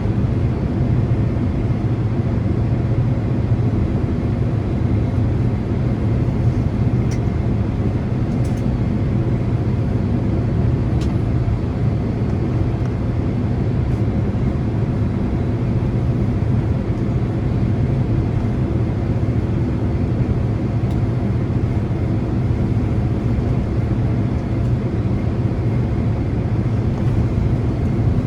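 Steady low rumble and engine hum inside the cabin of a Boeing 767 taxiing after landing, its engines at idle, with a few faint ticks.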